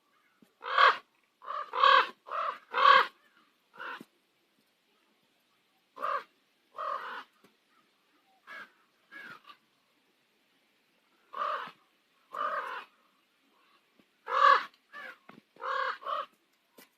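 Common ravens calling: loud, harsh croaking calls in clusters, a quick run of about five near the start, then pairs spaced a few seconds apart, and another quick run of about five near the end.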